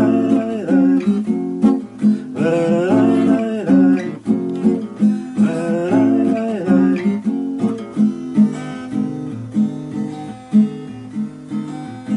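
Acoustic guitar playing a slow, steady accompaniment, with a man's wordless humming or vocalising over it a few times in the first half.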